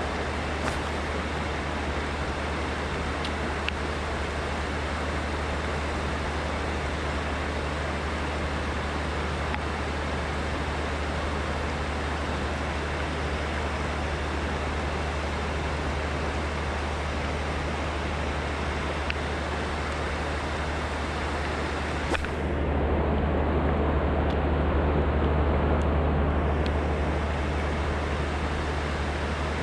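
Steady rush of river water. About 22 seconds in there is a click, and the noise grows louder and duller for about four seconds before settling back.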